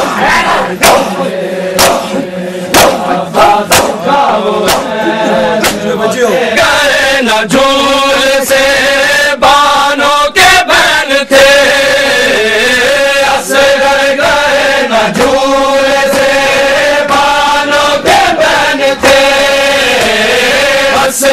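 A crowd of men chanting a Muharram noha, with sharp rhythmic slaps about once a second that are typical of matam (hands beaten on chests). The slaps dominate the first few seconds; from about seven seconds in, the voices swell into long held notes in unison.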